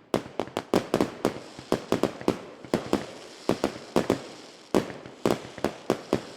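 Irregular series of sharp bangs or pops, about two to four a second, each trailing off in a short echo.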